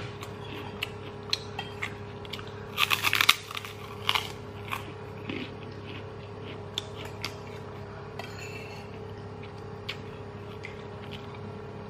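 Mouth-close crunching of a crisp white kerupuk cracker being bitten and chewed. A burst of loud crunches comes about three seconds in, another shortly after four seconds, then quieter scattered chewing clicks over a steady low hum.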